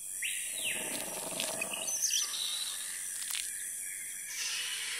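Jungle ambience sound effect: birds chirping and calling over a steady high insect drone, with one short sharp click a little past three seconds in.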